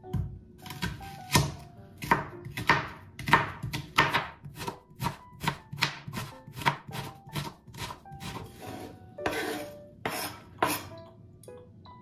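Chef's knife chopping onion on a plastic cutting board in a steady run of sharp strokes, roughly two or three a second, with two longer scraping sounds near the end.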